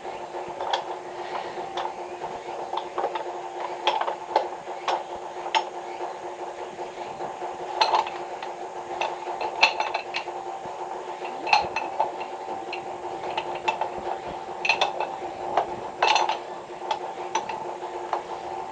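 Irregular light clinks and knocks of tools and pipe parts being handled during a water-pipe leak repair, over a steady hum.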